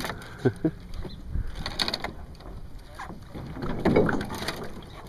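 Scattered knocks and clattering in a small metal jon boat as a hooked bass is swung aboard on the line and handled.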